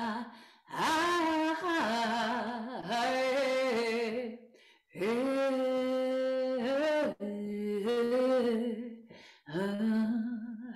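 A woman singing a wordless melody line of a ritual chant, about five long phrases of held notes with short breaths between them.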